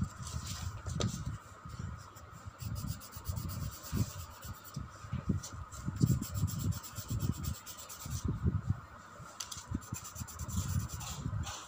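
Red coloured pencil rubbing back and forth on paper in quick, irregular strokes as a drawing is coloured in.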